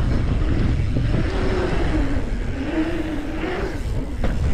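Mountain bike's knobby tyres humming on paved asphalt track, the pitch wavering up and down with speed over a low wind rumble on the microphone. A brief rattle of the bike near the end.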